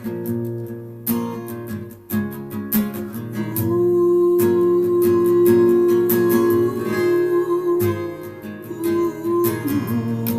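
Acoustic guitar strummed in an instrumental break between verses of a song. A louder held note rings over the strumming through the middle.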